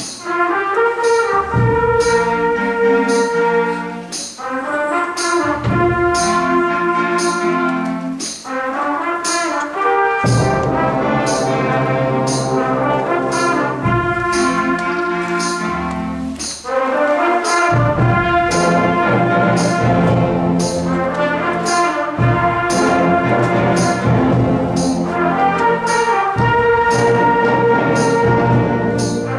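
Seventh-grade concert band playing a slow, gospel- and blues-influenced wind band piece, with brass to the fore in sustained chords over a steady percussion beat about once every three-quarters of a second.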